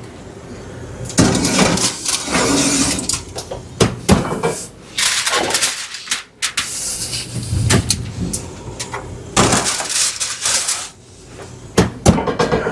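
Oven door opened, foil-covered roasting pans slid onto the racks and the door shut: a series of metal clunks, knocks and scrapes with stretches of rushing noise between them.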